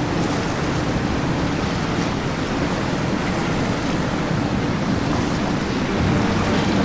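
Nor-Tech powerboat running at speed through choppy water: a steady rush of hull wash and spray over the low rumble of its engines.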